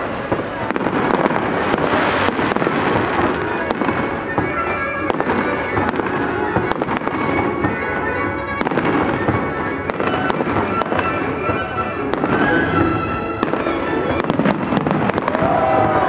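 Fireworks going off in quick succession: many sharp bangs with crackling bursts between them.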